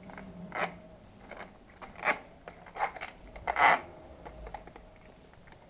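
Clear adhesive tape being pulled off its roll as it is wound around a bicycle handlebar: four short pulls, the loudest a little after three and a half seconds in.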